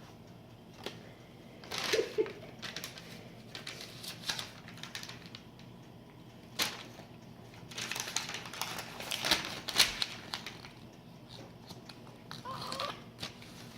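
Paper being crumpled and crunched in irregular crackly bursts. The crackling comes in a cluster about two seconds in, a single sharp crackle near seven seconds, and a denser stretch from about eight to ten seconds.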